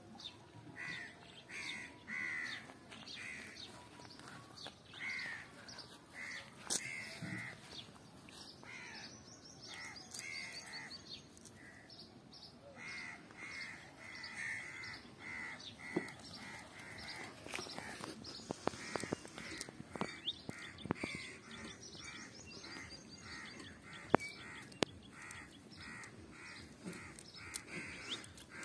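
Crows cawing over and over in quick runs of short calls, with a few sharp clicks, the loudest about three-quarters of the way through.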